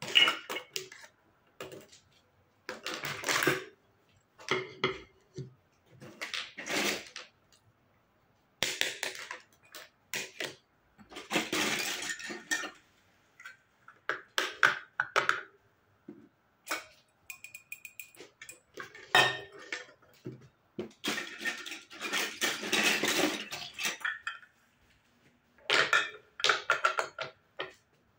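Plastic and wooden toy kitchen set pieces (play plates, a teapot, baskets and play food) being picked up and set down on a tabletop. They clatter and clink in irregular bursts with short pauses between.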